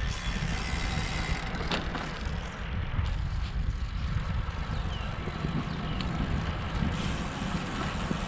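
Steady wind rumble on the camera's microphone and tyre noise from a Canyon Endurace CF SLX road bike rolling along an asphalt street, with a few faint clicks.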